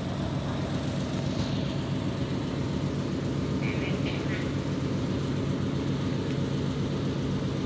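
A steady low hum, unchanging throughout, with a faint brief voice-like sound about four seconds in.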